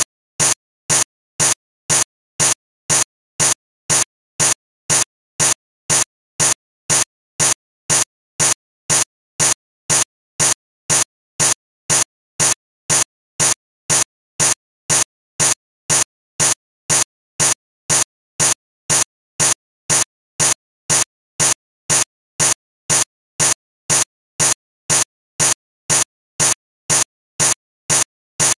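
Sharp ticks repeating evenly, about two a second, with silence between them.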